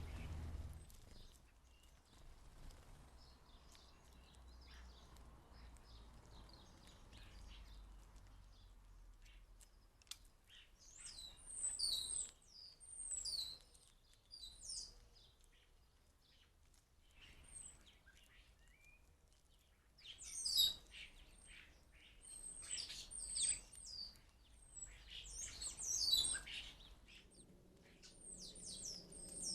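Small garden birds at a feeder chirping and twittering, high and quick, in several loud bursts with quieter gaps between, the kind of calls made by goldfinches and house sparrows.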